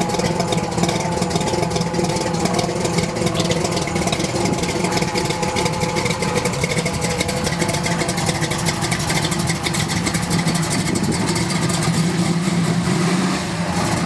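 Car engine idling steadily, a continuous even run of rapid exhaust pulses.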